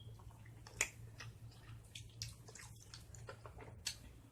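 Someone chewing saucy hot wings close to the microphone, with wet smacks and clicks. Two sharper smacks come about a second in and near the end.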